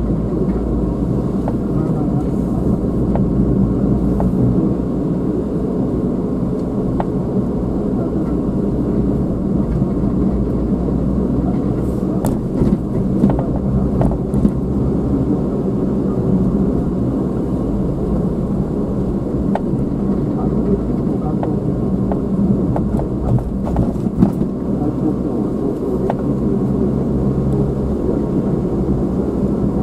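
Steady car engine and road noise heard from inside the cabin while driving, a low rumble with a few faint clicks and knocks from bumps in the road.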